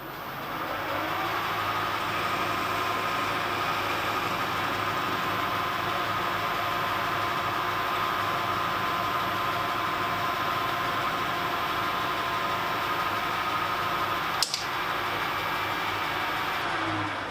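A metal lathe with a four-jaw chuck spins up and runs steadily, with a steady whine and hum, while a 6.2 mm drill is fed into a bronze split-bearing block. The drill's cutting edges have been stoned to zero rake so it won't grab. There is one sharp click near the end, then the lathe begins to run down.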